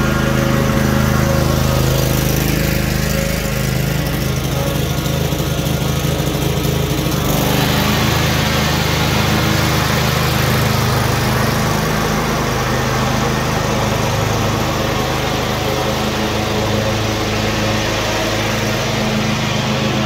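Cub Cadet RZT-50 zero-turn riding mower's engine running steadily as the mower drives about, the sound turning harsher about seven seconds in as it passes close by.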